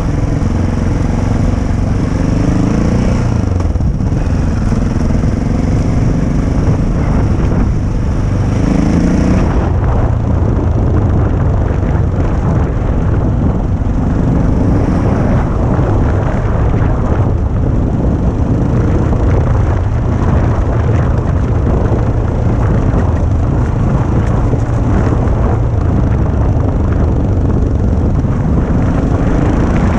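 Adventure motorcycle engine running under way, its pitch rising a few times as the throttle opens, over steady wind and road noise while riding a rough dirt and cobblestone track.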